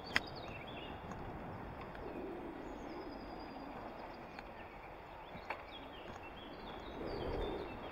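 Small birds chirping faintly over a steady low rumble, with a sharp click just after the start and another about five and a half seconds in.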